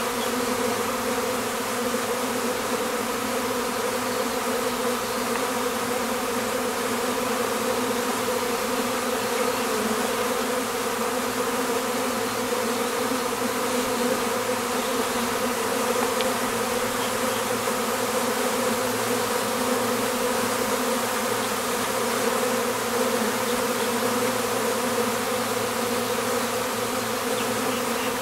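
Honeybees buzzing in a steady, unbroken hum.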